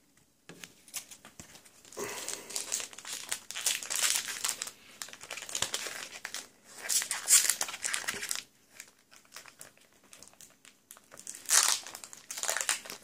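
Foil booster pack wrapper crinkling in irregular bursts as it is handled and opened, loudest about seven seconds in and again near the end.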